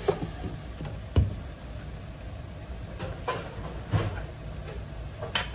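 A glass pan lid set down over a pan of greens with a sharp knock about a second in, followed by a few softer knocks, over a low steady hum.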